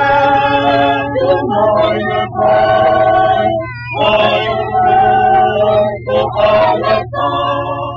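A choir singing held chords in short phrases, with a steady low hum beneath.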